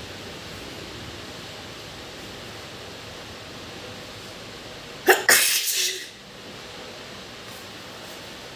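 A single wet sneeze about five seconds in: a sharp burst followed at once by a second, fading within about a second. A steady hiss runs underneath.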